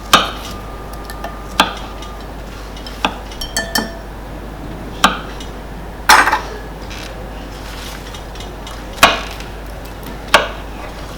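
Kitchen utensils clinking and knocking against a bowl as meringue is added to whipped cream, in about nine sharp, uneven knocks with a quick run of three a little past the middle.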